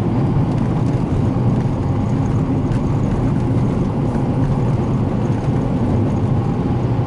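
Steady engine and road rumble heard inside a car's cabin while driving at speed on a packed-snow forest road.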